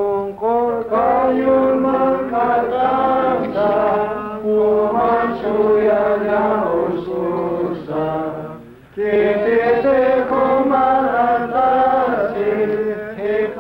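Congregation singing a slow hymn or chant together in long held notes, in two phrases with a short breath about eight and a half seconds in.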